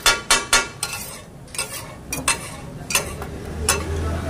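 Two steel spatulas clanging and scraping on a large flat iron tawa as chicken fries on it. Three quick clangs at the start, then single strikes every half second or so, over a steady sizzle.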